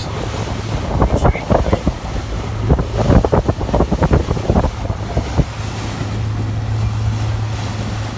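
Steady low drone of a boat's engine under way, with wind buffeting the microphone in gusts that ease after about five seconds.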